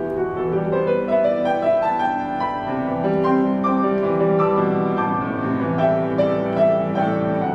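Background piano music: a melody of held notes over lower notes, playing steadily.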